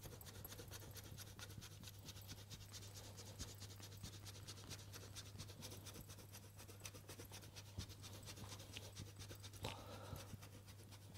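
Gruyère cheese being grated on the fine side of a stainless steel hand grater: rapid, faint scraping strokes.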